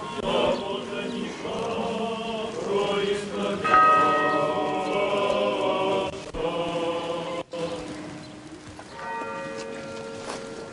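Church bells of an Orthodox monastery ringing, with new strikes a little under four seconds in and again near the end, over a choir chanting.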